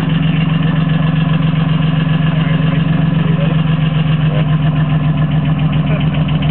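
Nissan 350Z's 3.5-litre V6 idling with a steady rhythmic rod knock, a connecting-rod bearing damaged by running a 125-shot of nitrous on the wrong engine map.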